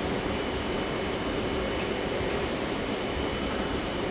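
Metro train car standing at a station platform, heard from inside: a steady hum with a few held tones from the train's running equipment.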